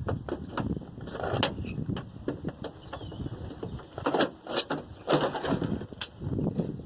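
Metal clicks, knocks and scraping as a tailgate latch mechanism is worked back into place inside a pickup's tailgate, with a few sharper clicks about a second and a half in, near the middle, and near the end.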